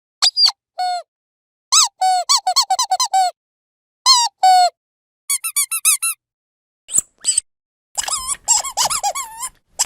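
A squeaky dog toy being squeezed in quick bursts of short squeaks that bend up and down in pitch, with brief silent pauses between the bursts. The longest runs come about two seconds in and near the end.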